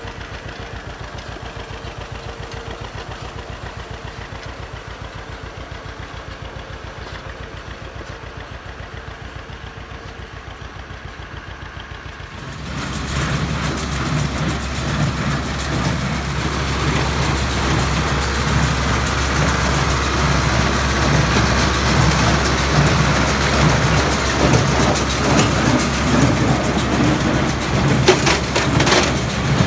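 A John Deere 50's two-cylinder engine running with an even, fast beat as the tractor rakes hay. About twelve seconds in it switches to a louder John Deere 337 square baler working behind a running tractor, the baler churning rhythmically over the engine, with a few sharp knocks near the end.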